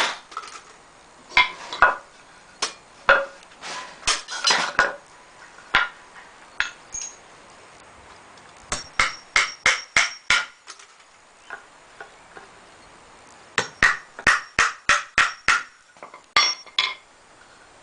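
Hammer driving nails into pallet-wood boards: scattered single blows at first, then two quick runs of strikes at about five a second, with a last few blows near the end.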